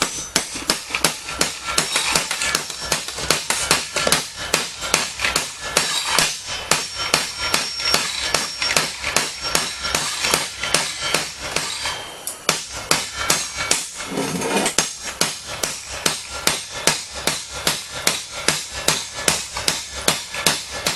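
Metal being struck over and over, sharp ringing blows about two or three a second, with a short break about twelve seconds in. It is the housing of an electric weed eater's motor being beaten until its two halves come apart.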